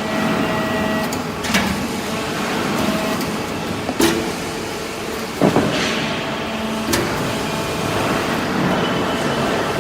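Hydraulic metal-shavings baler running, a steady machine noise broken by four sharp metallic knocks a second or two apart.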